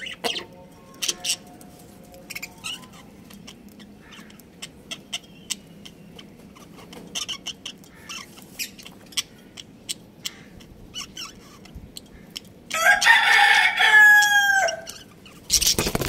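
Budgerigars giving short, scattered chirps. About thirteen seconds in, a rooster crows loudly for about two seconds, its call dropping in pitch at the end. A brief rush of handling noise comes right at the end.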